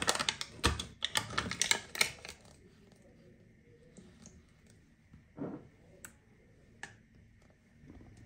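Metal spoon stirring and scraping dry rolled oats in a small glass bowl: a dense run of rapid clicks and scrapes for about two seconds. After that come a few scattered soft clicks and knocks.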